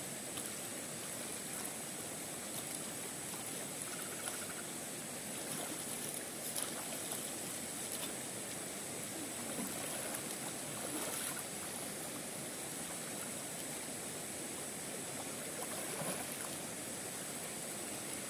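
Shallow stream running steadily over rocks, with small, brief splashes now and then as a person sits, washes and moves about in the water.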